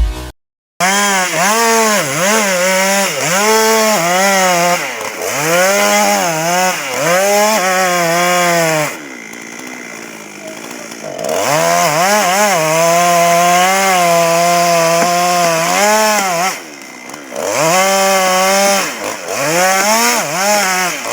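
Chainsaw cutting into a big tree, revving up and falling back about once a second. It drops to idle for a couple of seconds near the middle, then is held at full throttle for several seconds before revving in and out again.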